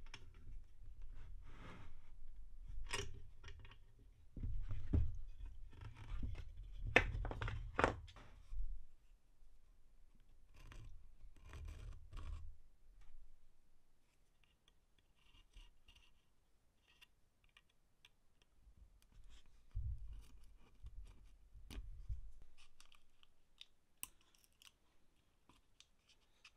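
Irregular clicks, scrapes and light knocks of hand work at a bench, busy through the first half and sparse after about halfway, with a few sharp clicks standing out.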